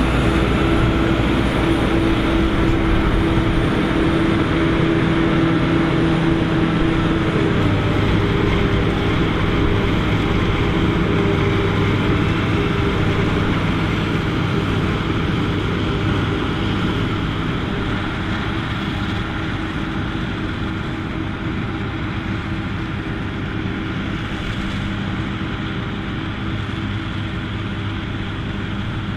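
A Claas Jaguar 850 forage harvester chopping maize for silage, its engine and chopping drum running steadily under load, together with the engine of the John Deere tractor pulling the silage wagon alongside. A loud, even machinery drone that eases a little in level through the second half.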